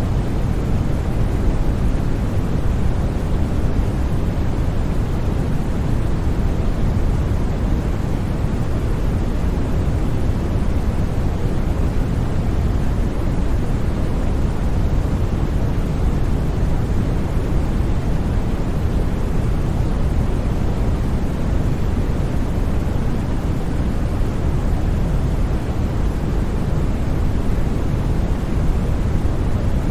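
Steady generated sleep noise, sold as white noise, running evenly with no changes. Its energy is heaviest in the bass and falls away toward the treble, so it sounds like a deep, even hush rather than a bright hiss.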